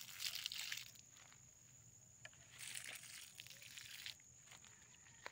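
Water sloshing and pouring from a watering can onto tomato plants, in two short spells: one at the start and one near the middle. A thin steady high tone runs behind it.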